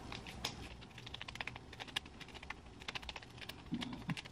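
Fingertips with long acrylic nails patting essence into the skin of the face: light, quick, irregular taps and clicks, several a second.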